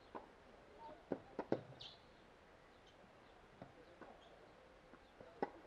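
Tennis ball struck by rackets and bouncing on a hard court during a rally: a handful of sharp knocks spaced half a second to a couple of seconds apart, the loudest pair about a second in. A bird chirps briefly in the background.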